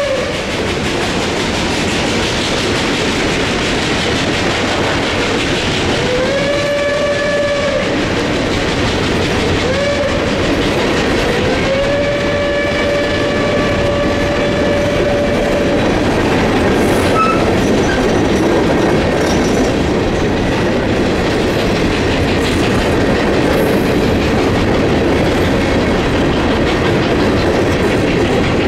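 Reading & Northern 2102's steam whistle sounding in the distance in the grade-crossing pattern: a blast ending right at the start, then a long, a short and a longer blast, each swelling up in pitch as it opens. Throughout, coal hopper cars roll past with a steady clickety-clack of wheels over the rail joints.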